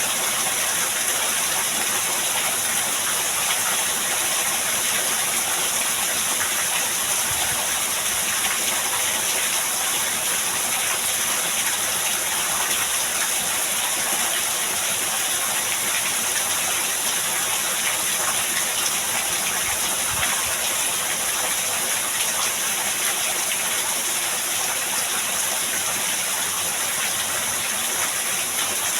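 Heavy rain pouring down steadily as a dense, even hiss.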